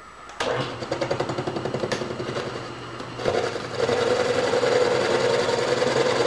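Metal lathe running with a fast, even rattle over a low hum, starting suddenly just after the beginning. About three seconds in it grows louder, with a steady mid-pitched hum.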